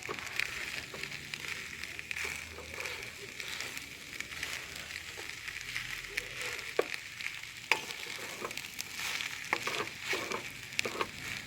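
Glutinous rice sizzling as it cooks in a pan: a steady frying hiss with many scattered clicks and knocks of a utensil stirring it.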